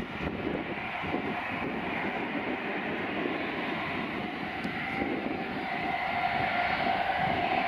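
Boeing 737 Business Jet's twin turbofan engines running as the jet rolls and turns off the runway after landing. It is a steady jet whine over a rumble, growing gradually louder toward the end.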